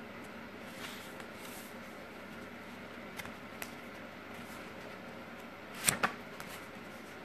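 Phone handling noise over a faint steady hiss: a few small clicks, then two sharper clicks close together about six seconds in.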